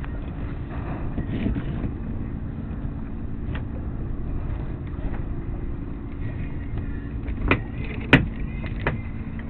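Steady low rumble and hum of a sailboat under way, with three sharp knocks near the end, the loudest about eight seconds in.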